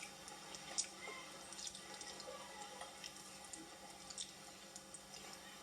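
Faint hiss with a steady low hum and scattered sharp ticks, typical of a quiet stretch of VHS tape playback.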